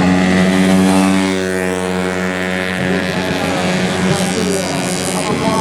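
Tuned 130 cc automatic scooter racing engine running steadily at one pitch.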